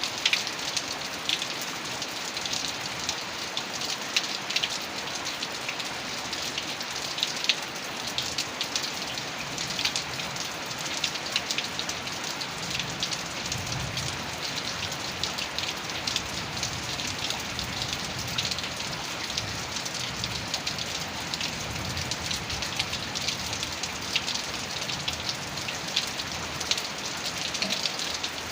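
Heavy rain falling steadily, with many individual drops ticking sharply on a hard surface. A faint low rumble comes in about halfway through.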